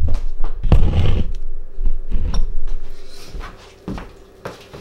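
Thuds and knocks of a heavy air fryer being handled and set down, loudest in the first second, then a few light clicks and quieter handling noise.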